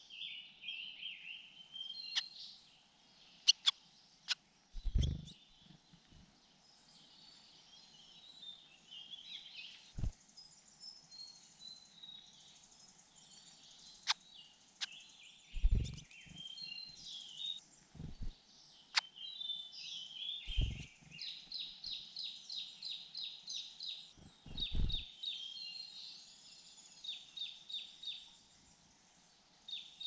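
Small songbirds chirping and calling, with a fast run of repeated high notes in the second half. A few dull low thumps come at intervals.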